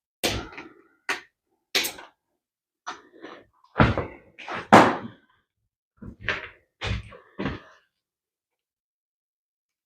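About a dozen irregular sharp knocks and clunks over the first eight seconds, from tools and parts being handled on the motorcycle as the old wiring is cut and pulled out.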